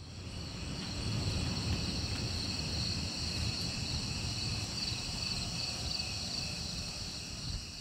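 Night insects, crickets, chirring in a steady high chorus, with a low rumble underneath.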